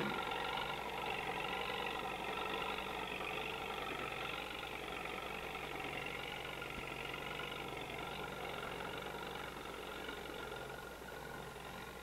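Farm tractor engine running steadily while pulling a hay baler and bale wagon, fading slightly toward the end.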